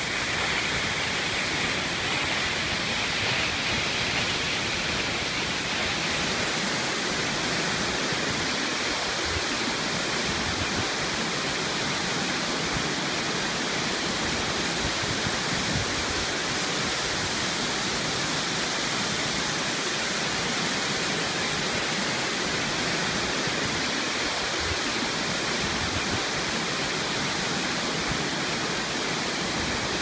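A rainforest waterfall pouring into a rocky pool: a steady, even rush of falling water that does not change.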